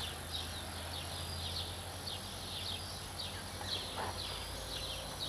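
Small birds chirping in the trees: short, high, downward-sliding chirps repeated about twice a second, over a faint steady low hum.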